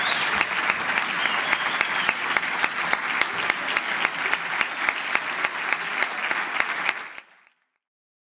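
Audience applauding, a dense patter of many hands clapping; it fades out about seven seconds in.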